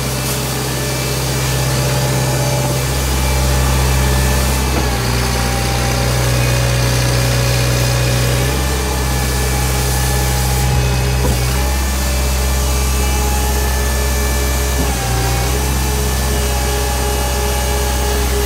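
Gehl 1648 asphalt paver's engine running steadily, its low tone stepping up and down every few seconds.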